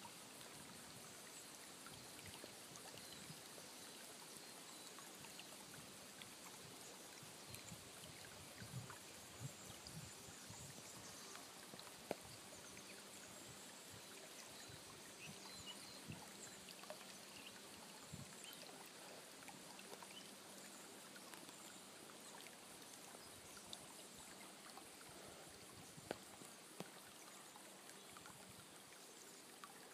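Near silence: faint outdoor ambience beside a still forest creek, an even soft hiss with a few light clicks.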